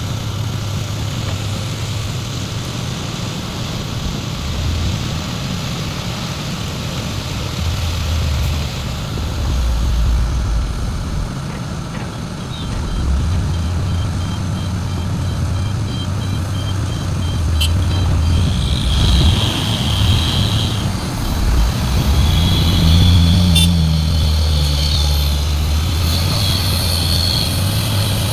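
Large excavator's diesel engine working under load, its low rumble swelling and easing as it digs and swings. About two-thirds of the way in, a high-pitched squeal joins in and comes and goes, with a couple of sharp clicks.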